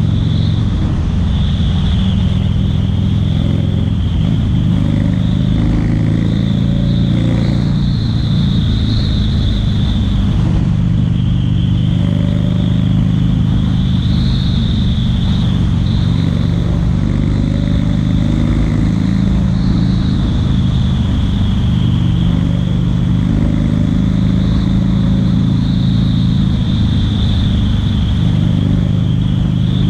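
Buell XB1200SS's air-cooled V-twin through a Jardine exhaust, running steadily at speed in fifth gear, with only slight rises and falls in engine pitch and wind noise over it.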